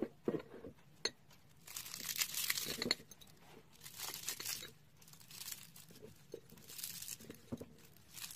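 Baked layered somsa pastry being torn apart by hand, its flaky layers crackling and crunching in several spells.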